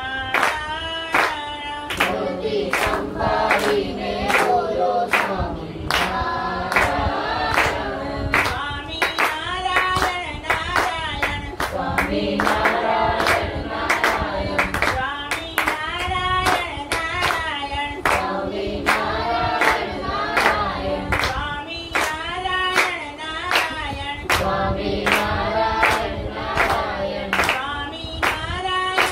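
A group of men, women and children singing a Gujarati devotional prayer in unison, clapping their hands steadily in time, about two claps a second.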